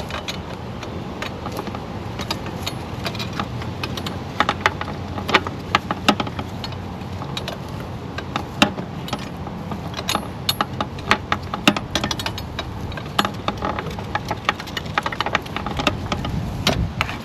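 Irregular metal clicks and rattles of hand tools and engine parts being worked under a car's hood, with no steady rhythm, over a constant low background noise.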